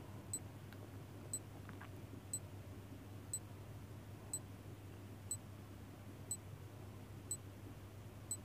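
Countdown timer sound effect ticking once a second, with short, faint, high ticks over a low steady hum.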